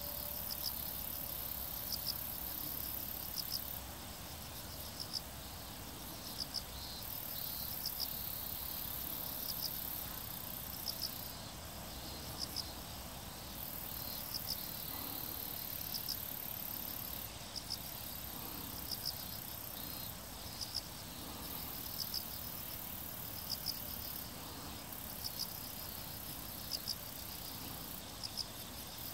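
Insects chirping in grassland: short chirps, mostly in pairs, about once a second, over a high continuous buzz that stops and starts every few seconds.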